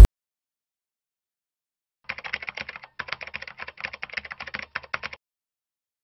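Computer keyboard typing sound effect: a quick run of key clicks lasting about three seconds, starting about two seconds in after silence. It keeps pace with the web address being typed into the box. Right at the very start a single loud hit closes the preceding music.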